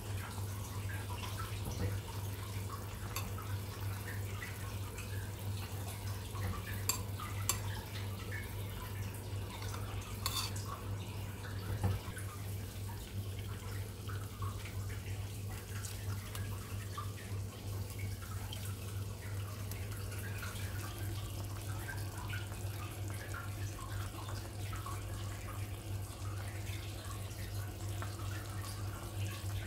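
Kitchen water sounds: small dripping and bubbling specks over a steady low hum, with a few light clinks between about seven and twelve seconds in.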